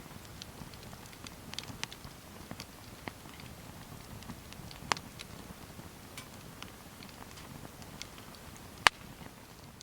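Wood fire crackling: irregular small crackles and clicks over a low steady rumble, with two sharp, louder pops about five and nine seconds in.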